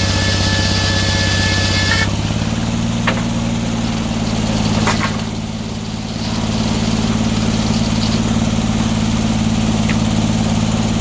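Sawmill's engine running steadily. A higher hiss and thin whine over it stop suddenly about two seconds in, leaving the engine on its own with a few light clicks.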